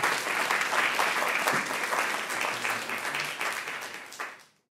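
Audience applauding, thinning out near the end and then cut off.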